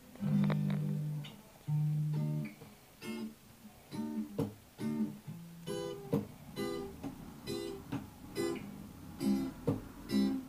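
Acoustic guitar played solo: a couple of longer ringing notes at the start, then short, choppy strummed chords about twice a second.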